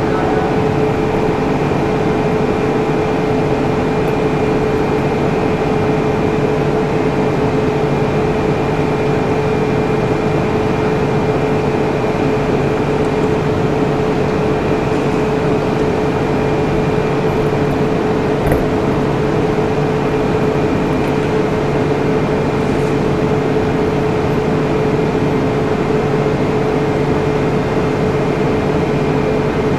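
Steady machine hum and hiss with a constant mid-pitched tone, unchanging throughout, and one faint click about eighteen seconds in.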